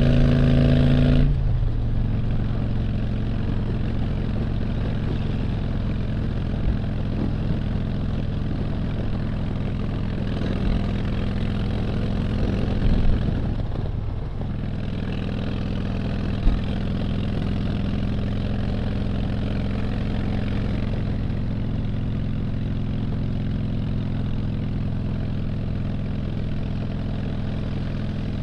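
2007 Harley-Davidson Dyna Street Bob's Twin Cam 96 V-twin running steadily at highway cruising speed, heard from the rider's helmet with wind and road noise. About a second in, the engine note drops in loudness and stays lower and even.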